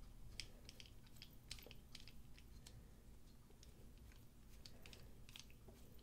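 Faint, irregular little clicks and ticks of a small screwdriver bit turning tiny screws into a folding knife's handle, in clusters with short pauses between.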